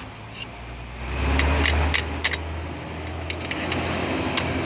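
Several sharp metallic clicks from the shift lever and selector mechanism of an open manual gearbox being worked by hand. A low rumble swells about a second in and eases off after about two seconds.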